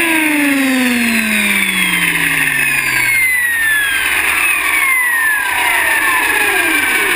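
Align T-Rex 500E electric RC helicopter's motor and rotor head spinning down on the ground, their whine falling steadily in pitch over a rushing of air.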